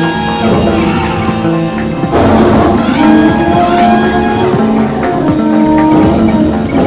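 Background music with held notes over a steady beat, getting louder about two seconds in.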